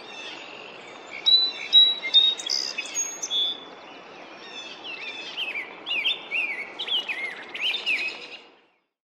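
Male rose-breasted grosbeak singing: two runs of quick, warbled, robin-like whistled phrases, the second beginning about four and a half seconds in. The sound cuts off suddenly near the end.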